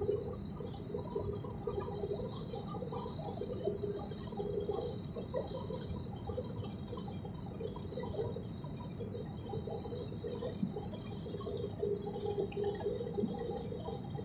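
Steady cabin noise of a jet airliner on approach: engine and airflow heard from inside the passenger cabin.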